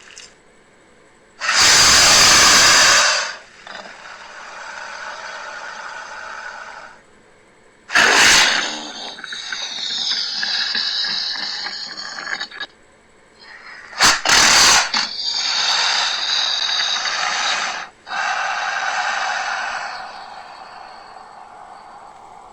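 Crocodile calls: a series of separate calls a few seconds long, with short pauses between them. The loudest come about two seconds in, at eight seconds, and as a quick pair near fourteen seconds, with quieter drawn-out calls in between.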